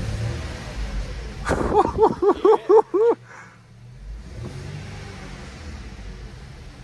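Infiniti Q50's twin-turbo VR30 V6, fitted with aftermarket lower downpipes, idling and then revved in about six quick blips about a second and a half in, before settling back to idle.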